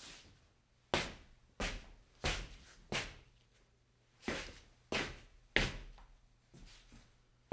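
Foley scuffs on stone: about ten short scrapes, each starting sharply and fading quickly, coming at an uneven pace with a longer gap in the middle.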